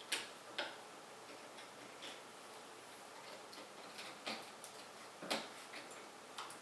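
Irregular sharp clicks and small knocks of metal hardware as a CPU cooler's mounting screws are cranked down with a screwdriver, the loudest clicks right at the start and about five seconds in.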